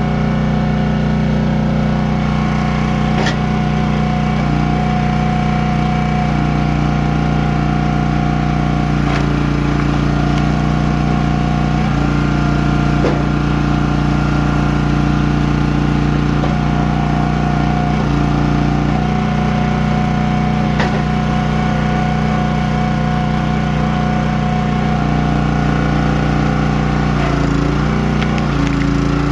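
Champion 27-ton log splitter's small gasoline engine running steadily, with a few sharp knocks over it. The engine note dips briefly twice near the end.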